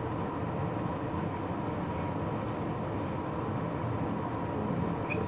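Steady background noise: a constant hum and hiss with no clear events, and a short click near the end.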